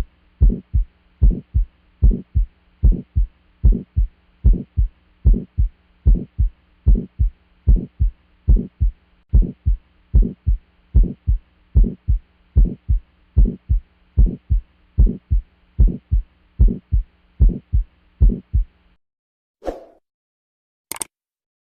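Heart sounds with the systolic murmur of aortic stenosis: regular low thumping beats with a faint hiss between them, over a steady low hum. The beats stop about 19 seconds in, followed by a soft thump and a click near the end.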